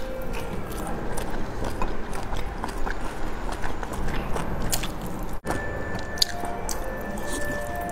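Close-miked chewing of a soft dumpling dipped in sauce: wet mouth sounds with many small irregular clicks.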